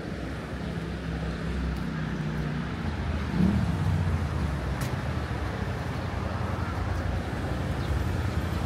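Street traffic: a motor vehicle's engine running close by over a low, steady rumble, getting a little louder about three and a half seconds in.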